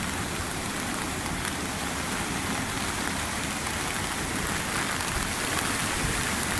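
Steady hiss of heavy rain and strong wind in a storm ahead of a typhoon.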